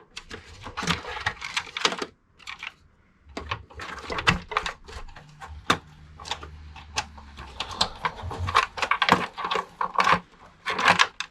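Irregular plastic clicks, scraping and rattling as SATA cables are unplugged from their connectors and handled inside a desktop PC case.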